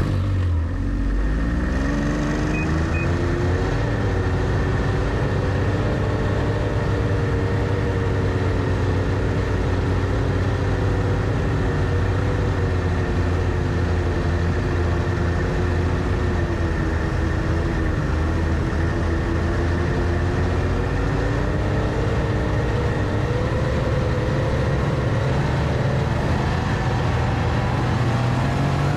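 Snowmobile engine running under way. Its pitch rises over the first second, then holds fairly steady with small rises and dips.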